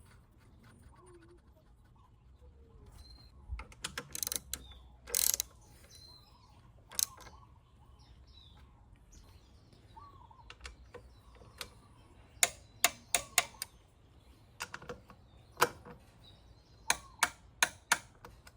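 Sharp metallic clicks and clinks of hand tools working on a scooter's rear brake, coming in short groups with pauses between. Birds chirp faintly in the background.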